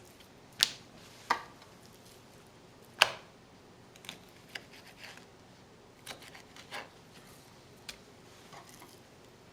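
A knife cutting veal cutlets on a cutting board, nicking them so the meat doesn't shrink in the pan. Scattered sharp taps and clicks, the loudest about three seconds in, with fainter ones after.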